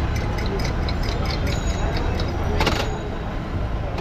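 Metal spoon clinking rapidly against a small glass as tea is stirred, with a louder run of clinks near the end, over a steady low rumble of street traffic.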